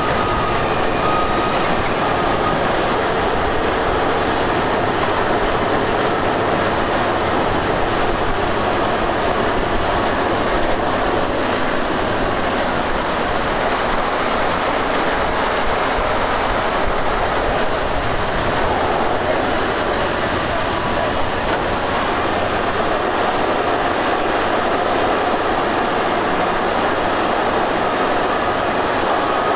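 Heavy tracked earthmoving machine working in sand: diesel engine running under load and steel tracks clattering, steady and loud. A reversing alarm beeps in the first second, then stops.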